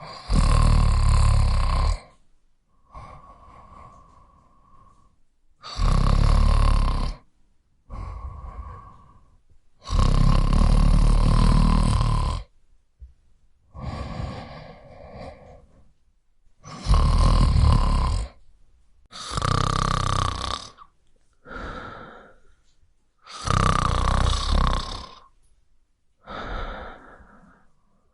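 Snoring: a loud snore every five or six seconds, each lasting one to two seconds, with quieter, shorter breaths between them.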